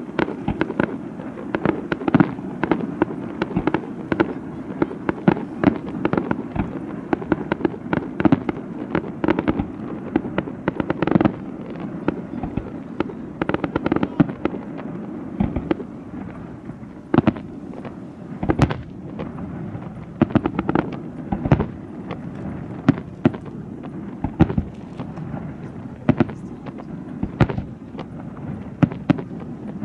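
Fireworks display: a dense, continuous string of bangs and booms with crackling between them, several sharp reports every second.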